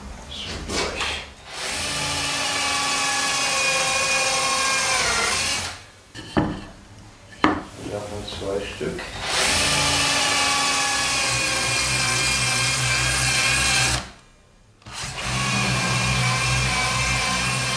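Cordless drill boring holes into a wooden strip, in three long steady runs with short pauses between them. The pitch dips briefly as the first run ends. Between the first and second runs come short bursts and a few sharp knocks.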